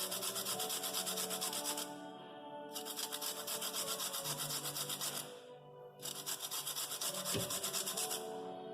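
Lemon peel being grated on a hand grater: three runs of quick, even scraping strokes with short pauses between them, taking off the yellow zest. A single knock sounds near the end, over background music.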